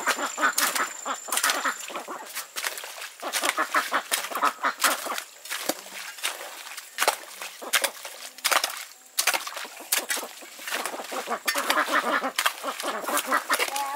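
A flock of farmyard ducks quacking continuously, many short calls overlapping.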